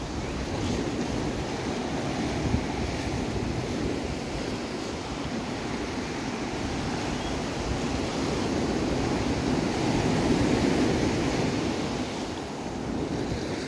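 Ocean surf breaking and washing up a sand and cobble beach, a steady wash that swells a little louder about two-thirds of the way through, mixed with wind buffeting the microphone.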